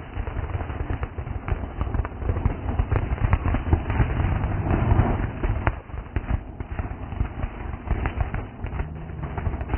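Consumer fireworks going off: a long run of rapid crackling pops, densest in the first half, over a low rumble.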